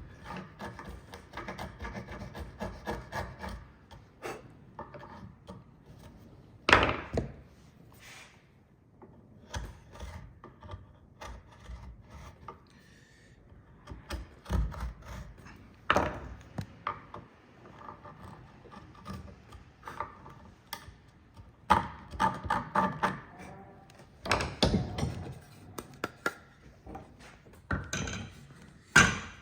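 Chisel paring and scraping the bottom of a wooden housing joint, a rasping, rubbing sound that comes and goes. It is broken by a few sharp wooden knocks, the loudest about seven seconds in.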